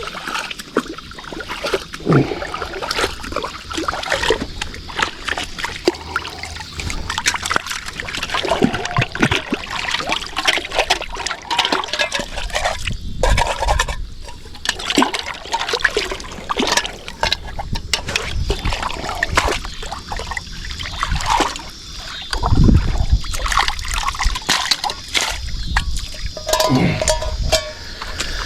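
Splashing and trickling water with many irregular small clicks and knocks, and a few dull thumps.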